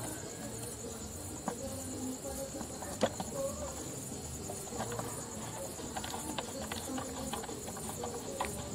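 Crickets chirping in a steady, high chorus, with scattered small clicks and knocks over it; the sharpest click comes about three seconds in.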